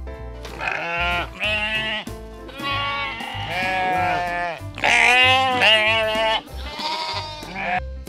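Sheep bleating again and again, about six wavering bleats, the loudest a little past the middle, over background music with a steady beat.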